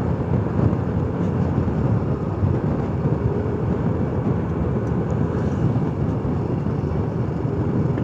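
Steady wind rush on the microphone of a moving motorcycle, with the engine and road noise running underneath.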